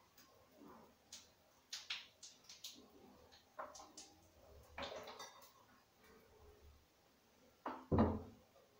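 Pliers clicking and snipping at the electric instant shower's power cable in a string of short, sharp clicks, then a louder thump about eight seconds in.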